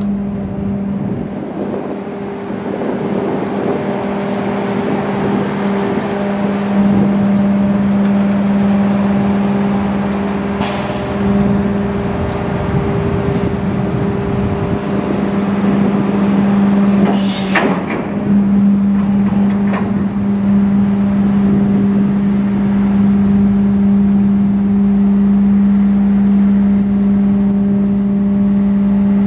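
Rear-loader garbage truck's packer cycling: the truck's diesel engine runs at raised speed to drive the hydraulic pump, giving a steady hum that grows louder over the first few seconds as the hydraulic cylinders move the packer blade. Two short hisses of air come about seven seconds apart.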